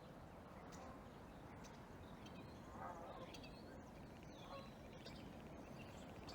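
Near silence: faint outdoor ambience in the snow, with a few faint high chirps around the middle.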